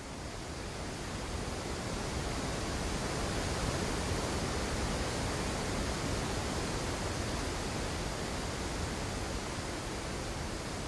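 Water rushing over a low river dam: a steady, even rush of falling water that grows louder over the first couple of seconds, then holds.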